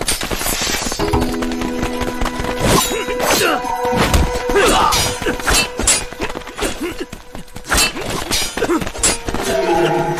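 Fight-scene sound effects: a rapid series of sharp hits and clashes, laid over a dramatic music score of held notes.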